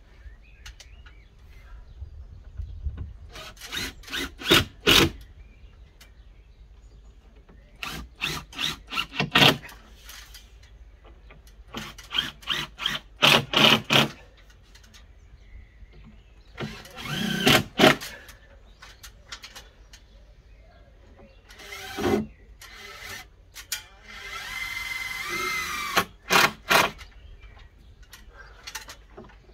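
Cordless drill-driver fixing new cement board with self-tapping screws. It goes in about six short bursts of rapid sharp clicks, with a steady motor whine for a couple of seconds near the end.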